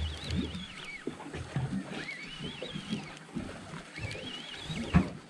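Conventional jigging reel's drag giving line in three short whining spells, its pitch wavering with the speed of the pull: a hooked fish taking line.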